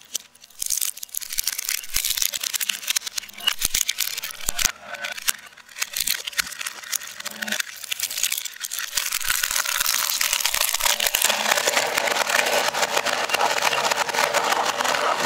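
Twin-shaft industrial shredder crushing a plastic toy cash register: irregular sharp cracks and snaps of breaking plastic, thickening into dense, loud crunching from about the middle onward.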